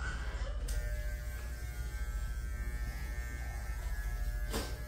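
Electric hair clippers buzzing steadily while trimming a toddler's hair, with one brief scratchy noise near the end.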